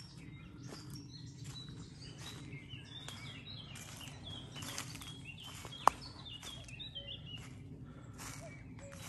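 Small songbirds chirping and singing, thickest in the middle, over footsteps on a leafy woodland path. There is a single sharp click about six seconds in.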